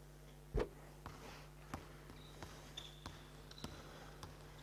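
Basketball being dribbled on a hardwood gym floor: faint bounces about every half second, the first, about half a second in, the loudest. A steady low hum runs underneath.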